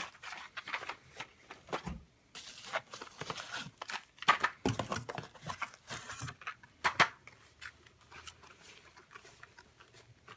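Cardboard ammunition boxes being handled and shuffled in their shipping box: irregular rustling, scraping and knocks, quieter near the end.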